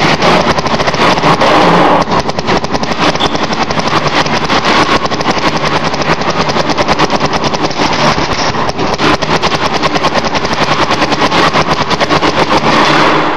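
Paintball marker firing a long, rapid, continuous string of shots, each a sharp pop with the gas release, stopping near the end.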